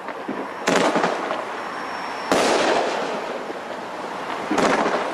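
Shots from a Red Lantern 'Energetic Palm' 16-shot 500-gram fireworks cake going off three times, about a second and a half to two seconds apart. Each sharp bang trails off slowly into the next.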